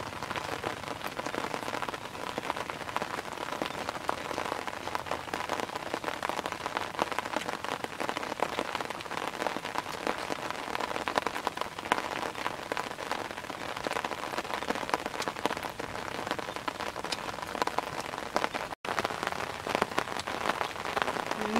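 Steady patter of rain, a dense haze of fine drop ticks, with a momentary dropout near the end.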